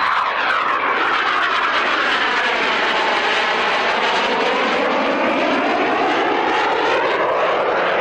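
Aermacchi MB-339 jet trainers of the Italian display team flying past, a steady loud turbojet noise with a sweeping, phasing tone that dips and rises again as they pass.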